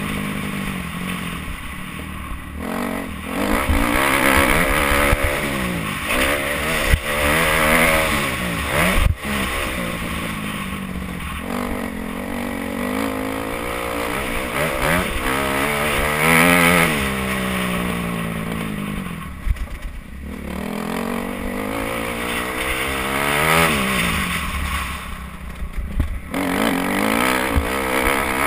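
Kawasaki KX250F single-cylinder four-stroke motocross engine being ridden hard, its pitch climbing and dropping over and over as the rider opens and closes the throttle through the gears. Wind rushes over the helmet-mounted camera, and there is a sharp knock about nine seconds in.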